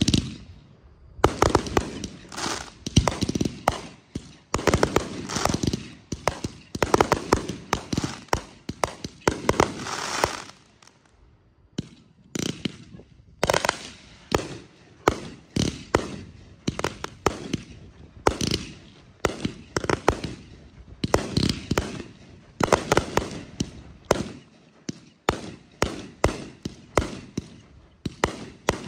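Aerial fireworks firing from the ground in rapid volleys, many sharp bangs from the launches and bursts one after another, with short lulls about eleven seconds in and again near twenty-four seconds.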